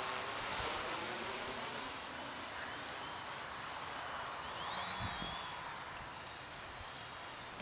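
3D Robotics quadcopter's electric motors and propellers buzzing steadily in flight, nice and quiet, with a short click at the end.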